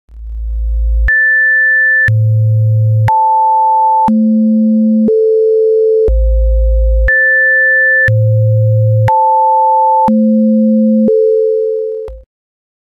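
Synthesized sine-tone signal: a steady tone held underneath while single pure tones step once a second, jumping between very low and high pitches in a six-tone pattern played twice, then cutting off suddenly.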